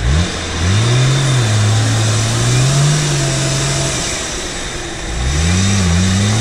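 Jeep Wrangler YJ engine revving as the 4x4 pushes through deep mud: a quick blip at the start, a held rev for about three seconds, a drop, then another rising rev near the end.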